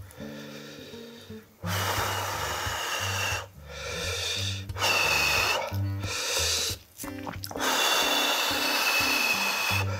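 A person blowing several times on hot shabu-shabu food to cool it, each breath a breathy rush lasting a second or two with a slight whistle, over light background music.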